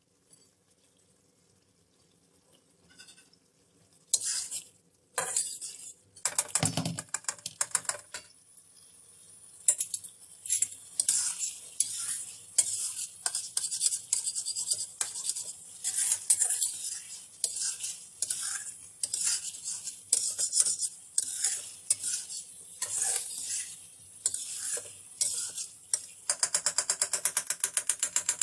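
A flat metal spatula scraping and knocking against a metal karahi while chicken with green chillies is fried down (bhuna) in a sizzling tomato gravy, in strokes about one or two a second after a quiet first few seconds. Near the end comes a quick, even run of clicks.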